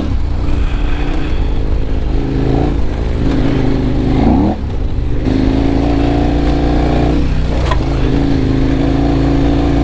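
KTM 1190 Adventure R's V-twin engine, breathing through an Akrapovic muffler with its baffles removed, running under load on a dirt trail with the throttle rising and falling. About four seconds in the revs climb and then drop suddenly, as at a gear change, and a sharp click comes near eight seconds in.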